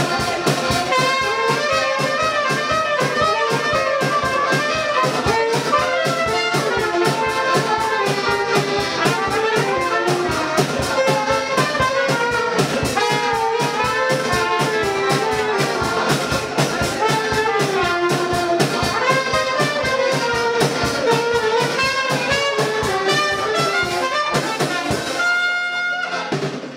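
Live folk dance band playing: accordions, saxophone and trumpet over a drum kit keeping a steady beat. Near the end the beat stops and the band holds a final chord.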